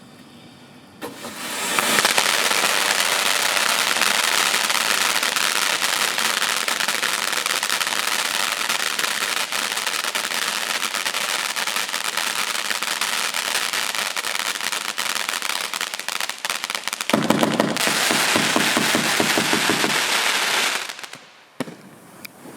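A 500-gram consumer fireworks cake firing: a rapid, continuous stream of small bangs and crackling that starts about a second and a half in. It gets heavier and deeper near the end, then stops abruptly.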